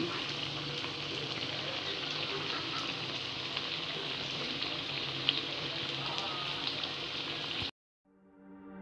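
Bakwan vegetable fritters deep-frying in hot oil, a steady sizzle with small crackles as they fry until crisp and lightly browned. The sizzle cuts off suddenly near the end, and music begins to fade in.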